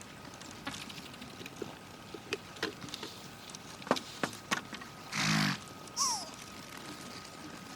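Horse in a snowy pen: scattered crunching steps and knocks, then about five seconds in a short, loud blow through the nostrils with a low grunt, followed by a brief falling squeak.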